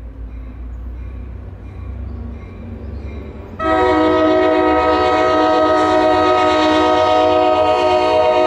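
A low train rumble, then about three and a half seconds in a train horn starts suddenly and holds a loud, steady multi-note chord.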